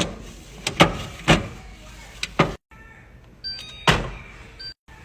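A series of sharp knocks and clunks, about four, as items and containers are set down and handled in a fridge, with a few brief steady tones in between.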